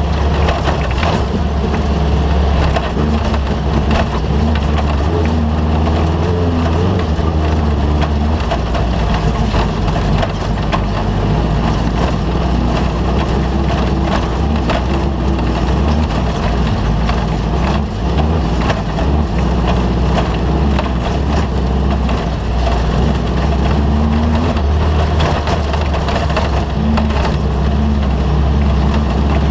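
Off-road race vehicle driven hard over rough ground: a steady, loud low engine drone under constant rattling and knocking from the chassis and the terrain.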